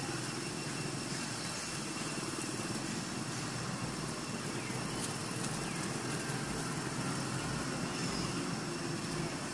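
A steady low engine hum under constant background noise.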